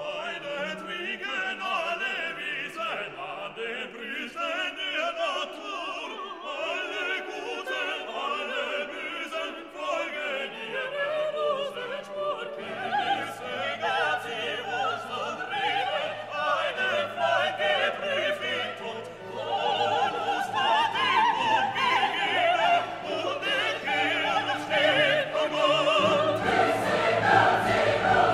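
Background classical music: operatic singing with orchestral accompaniment, growing louder in the second half.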